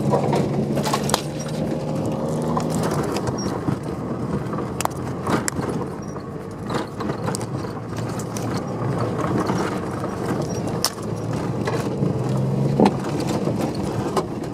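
Subaru car driving over a rough dirt forest track, heard from inside the cabin: steady engine and road noise, with many sharp knocks and rattles from the bumps. A clearer engine hum shows at the start and again a little before the end.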